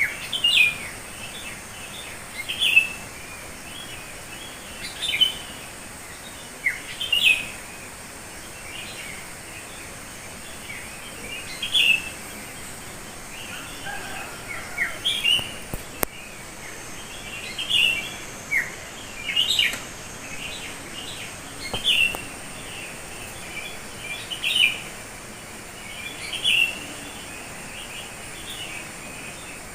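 Wild birds calling: short, high chirps, many of them quick downward notes, repeating every second or two over a steady background hiss.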